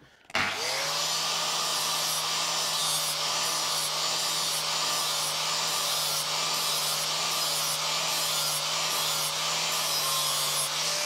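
Makita angle grinder with an 80-grit flap disc spinning up about half a second in, then running with a steady whine while grinding a steel lawn mower blade clamped in a vise, flattening off the nicked edge.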